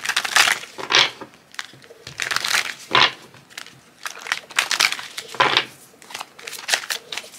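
A tarot deck being shuffled by hand, overhand style: cards slapping and sliding against each other in a quick run of short, irregular bursts.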